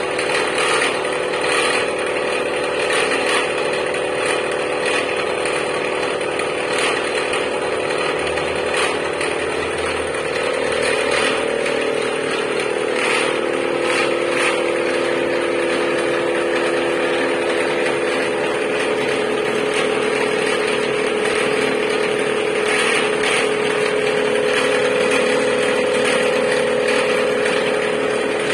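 Metalworking machine running steadily while wood-chipper knife blades are machined: a constant mechanical hum that shifts in pitch about ten seconds in, with light scattered clicks and clatter.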